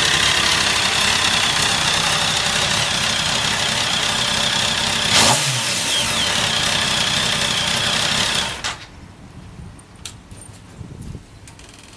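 Kawasaki ZX-10R inline-four engine idling steadily, then shut off about five seconds in, with a brief blip and a falling run-down. A hiss carries on for a few more seconds and stops suddenly, followed by a few faint clicks.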